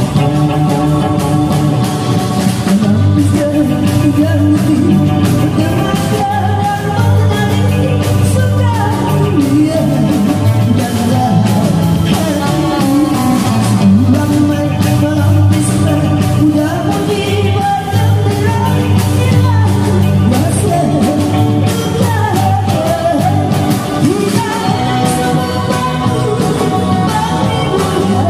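A live band playing 1960s-style Malay kugiran pop: a woman singing the melody over electric guitars, bass guitar, keyboard and a drum kit keeping a steady beat.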